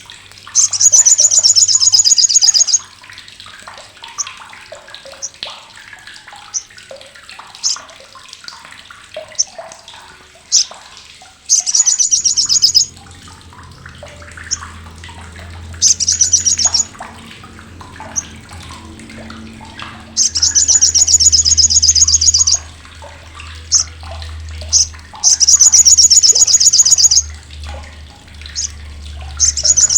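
Olive-backed sunbird (sogok ontong, sriganti) giving its loud, harsh, sharp chattering call (crecetan): fast high rattles lasting one to two seconds, six times, with short single high calls between them.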